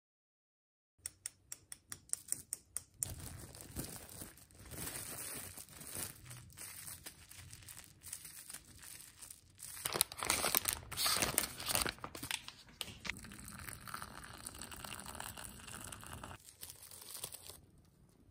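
Plastic food packaging being handled, torn open and crinkled. It starts with a quick run of sharp clicks, then turns into continuous crackling and tearing, loudest about halfway through.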